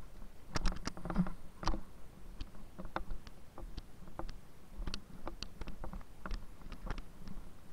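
Irregular light clicks and taps, two or three a second, over a faint steady low hum.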